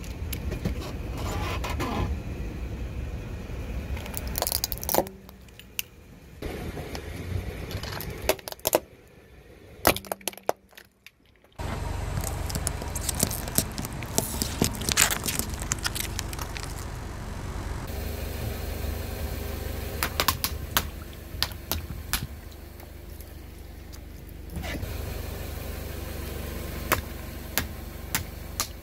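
A car tyre rolling slowly over small objects and crushing them (die-cast toy cars, then a row of jelly cups, then water balloons), with cracks, crunches, squishes and sharp snaps over a low engine and tyre rumble. The sound changes abruptly several times between clips, with a short near-silent gap about ten seconds in.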